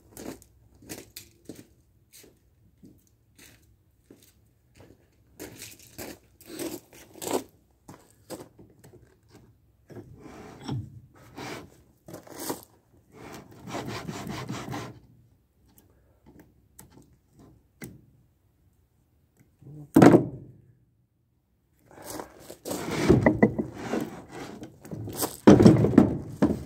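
Scattered clicks and short scrapes of pliers and gloved hands working on an old cast-iron Reed bench vise, with one sharp clunk about two-thirds of the way through. Near the end, louder scraping and rubbing as the heavy vise is tipped over and shifted against the wooden plank it sits on.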